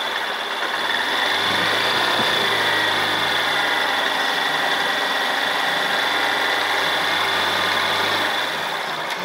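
Honda CG 160's single-cylinder four-stroke engine running steadily. It grows a little louder about a second in and eases off near the end.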